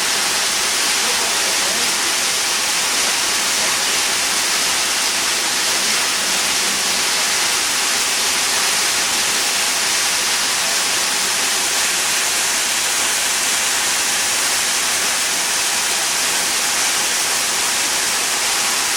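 Waterfall crashing steadily: a loud, even roar of falling water with most of its energy high up, no breaks or separate events.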